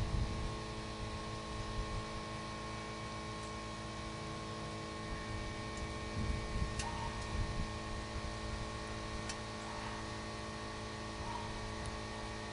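Steady electrical hum, a stack of level tones over a low rumble, with a few faint clicks now and then.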